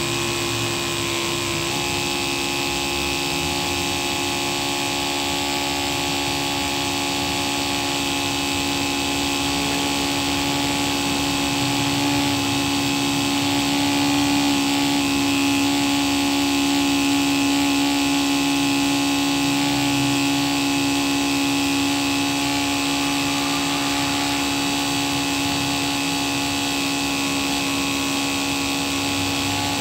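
Electric pressure sprayer's pump motor running with a steady hum. Its pitch drops slightly about two seconds in.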